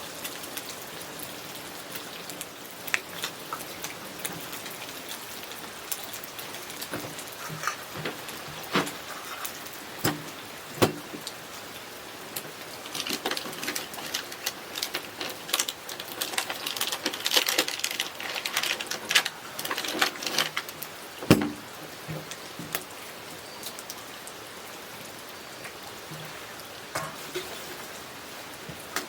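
Rain falling steadily, with scattered sharp taps and knocks that grow thickest about halfway through.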